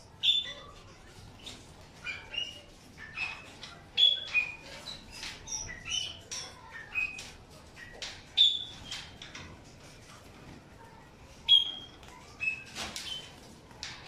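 Small cage birds, finches and canaries, calling: a scattered run of short, sharp chirps, with a few louder single calls standing out.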